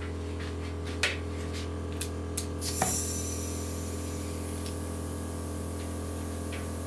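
Metal clicks of a pneumatic quick-connect coupling as an air blow gun is fitted to a coiled air hose, with a short puff of escaping air about three seconds in, over a steady low hum.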